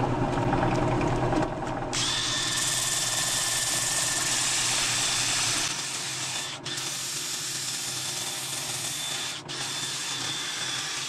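Handheld drill with a sanding disc power-sanding the inside of a cherry bowl spinning on a wood lathe. The lathe's hum is heard first; about two seconds in, the drill's steady high whine and the rasp of the abrasive start, dipping briefly twice.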